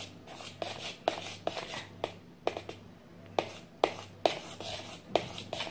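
A metal spoon stirring a thick milk-and-jackfruit custard in a steel pot, scraping and clinking against the pot about twice a second in an uneven rhythm, over a faint steady low hum.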